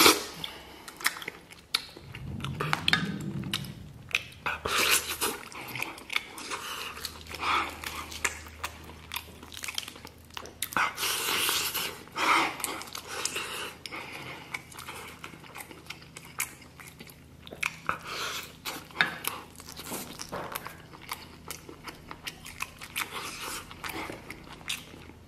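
A person biting and chewing braised pork meat off a large pork leg bone, with irregular wet mouth clicks and chewing noises.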